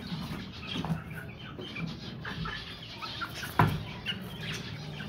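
Chickens clucking and chicks cheeping in short scattered calls, with a single sharp knock about three and a half seconds in.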